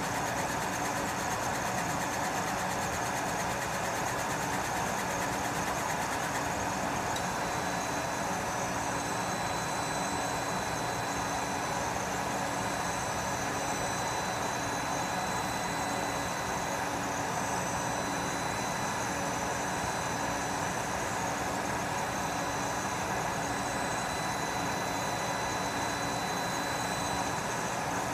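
Laser cutter at work cutting plywood: a steady, even machine hum and air rush from its running fans and air assist. A thin, high, steady tone comes in about seven seconds in.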